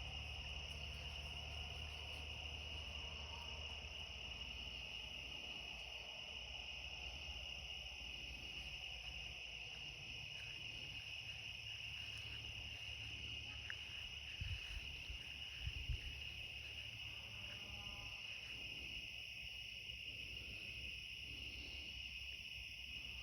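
Steady, high-pitched chorus of night-singing insects, with a low rumble of distant traffic underneath. Two brief low thumps come about two-thirds of the way through.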